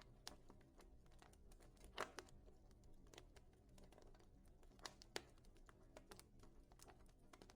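Wood fire in a fireplace crackling: irregular sharp pops and snaps, the loudest about two seconds in and a pair around five seconds in, over a low steady rumble of the flames.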